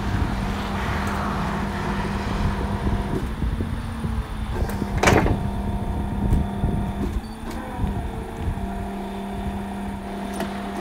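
Flatbed tow truck's winch running with a steady hum as it pulls a quad bike up the tilted bed. A sharp clank comes about five seconds in, and the hum breaks off briefly near eight seconds, then starts again.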